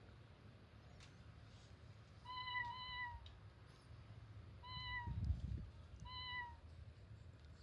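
Four short, identical meows from a cat-sound piano app: two in quick succession, then two single ones spaced apart, each at the same pitch. A low thump comes about five seconds in.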